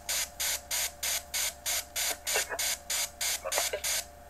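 XParanormal VR-Ghostbox software sweeping: regular short bursts of static, about three a second, over a steady tone, with a few brief chopped sound fragments cut in.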